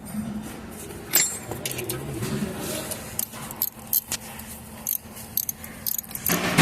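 Metal tools and small parts clinking and clicking in scattered sharp knocks during hand work on an engine's timing-chain assembly, with a voice starting near the end.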